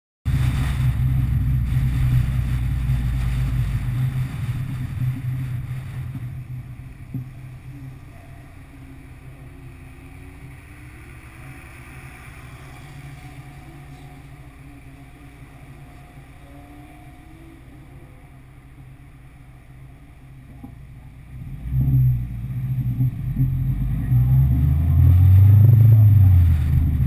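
1984 Mini Mayfair's A-series four-cylinder engine running on the move, with road noise. It is loud for the first few seconds and drops to a lower, steady hum through the middle. Near the end it pulls harder again, its revs rising and then falling.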